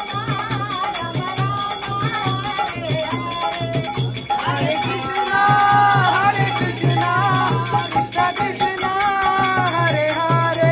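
Devotional kirtan music: singing over rattling percussion and a steady pulsing beat, which cuts off abruptly at the end.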